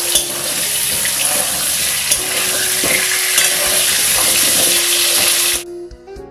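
Potato and carrot pieces sizzling in hot oil in a metal kadhai, with a steel spatula scraping and knocking against the pan as they are turned. The sizzle cuts off suddenly near the end and music comes in.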